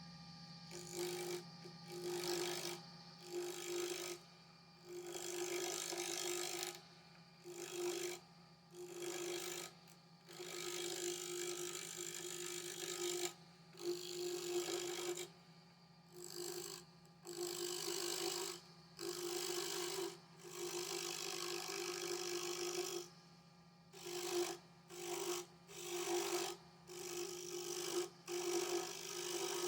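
Power tool working soft willow wood in a series of short, irregular passes, each giving a rasping cut over the motor's steady hum.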